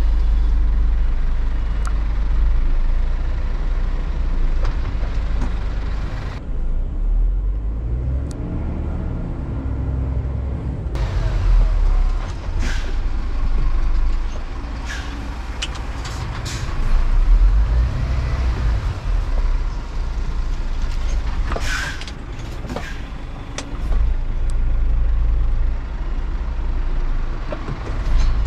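Scania R410 truck's 13-litre six-cylinder diesel running and revving up and down several times as the truck tries to move on an iced-over surface, with a few short hisses of air.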